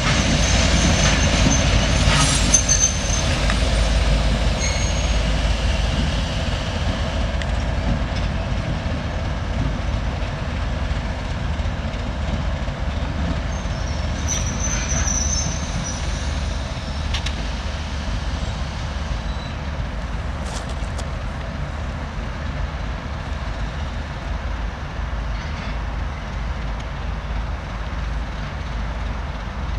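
2M62U two-section diesel locomotive's two-stroke diesel engines running as it pulls away, the sound slowly fading as it recedes. Brief high-pitched wheel squeals come near the start and again about halfway through.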